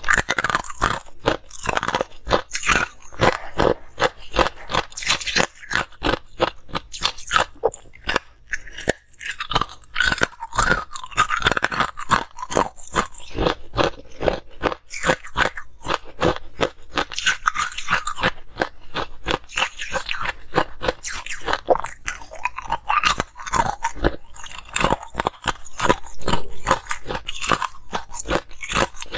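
A person biting and chewing chunks of ice close to a clip-on microphone: rapid crunches, several a second, one after another, with a short lull about nine seconds in.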